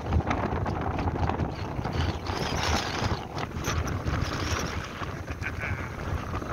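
Strong wind buffeting the microphone in a continuous low rumble, with small waves breaking and washing onto a muddy shore.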